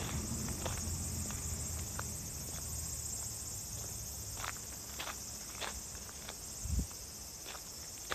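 Insects chirring steadily in the grass as a high, even hiss, with scattered footsteps crunching on gravel. A low rumble from a passing vehicle fades away over the first few seconds.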